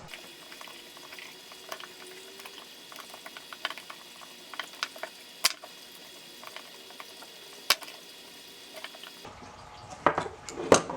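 Small metal clicks and taps over a faint steady hiss as pliers grip and turn a piece of round metal stock during hand assembly, with two sharper clicks about halfway through and a couple of seconds later.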